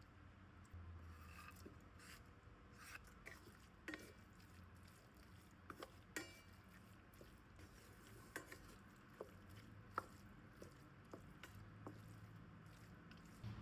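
Faint kitchen handling sounds: a dozen or more light, scattered clicks and taps of utensils and glassware, under a low steady room hum.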